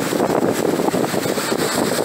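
Strong storm wind buffeting the microphone, a loud, steady rush that flickers with the gusts.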